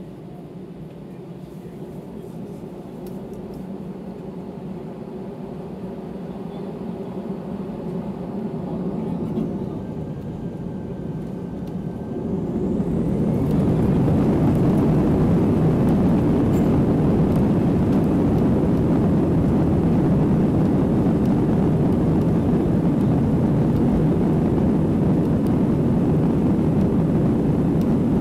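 Airbus A320-200 jet engines heard from inside the cabin, their sound growing slowly louder at low power, then spooling up sharply about 13 seconds in to take-off thrust. A loud, steady rush of engine and air noise follows as the take-off roll begins.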